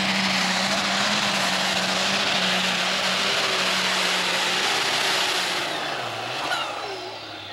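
Super stock pulling tractor's engine running hard at full power, loud and steady. After about six seconds it drops to a quieter, lower running sound.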